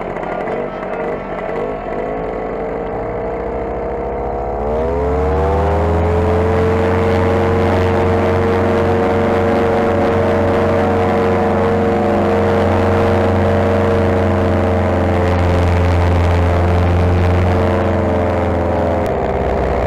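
Paramotor engine running at lower throttle, then revved up about five seconds in, its pitch rising quickly and then holding steady at high power; near the end the revs ease back slightly.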